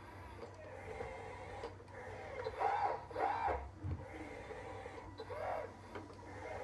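Small electric drive motors and gearbox of a radio-controlled bulldozer whining. The pitch rises and falls in short surges, strongest about halfway through and again near the end, over a steady low hum.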